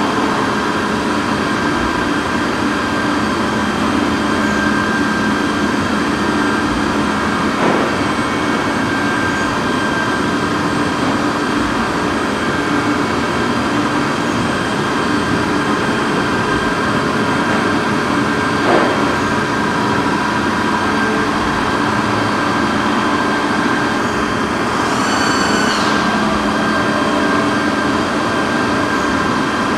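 A large CNC milling and boring machine runs with a steady hum made up of several steady tones. Two short clicks come about 8 and 19 seconds in, and a brief whine rises and falls about 25 seconds in.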